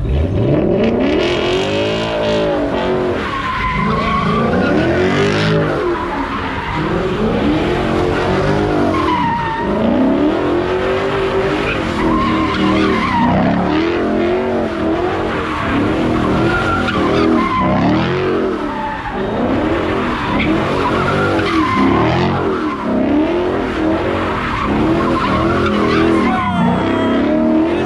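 Ford Mustang GT's V8 revving up and falling back over and over while the car spins donuts, its rear tyres squealing and skidding on the asphalt.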